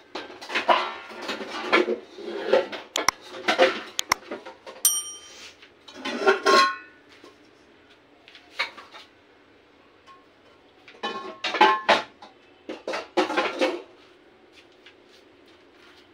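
Kitchen dishes and utensils clattering and clinking in irregular bursts, with a short chiming ding about five seconds in.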